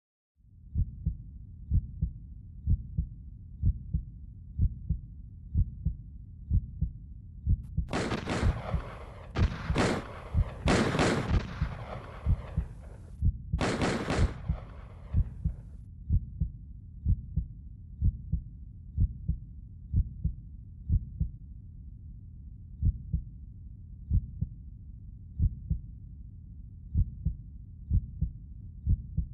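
Heartbeat sound effect: slow, even low thuds that go on throughout. From about 8 s to 16 s a cluster of loud bangs, like gunshots, breaks in over it, with echoing tails and a thin high ringing tone.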